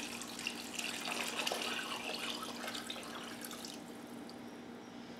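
Chicken broth pouring from a glass measuring jug into a slow cooker pot that already holds liquid, a steady splashing pour that tapers off about three and a half seconds in.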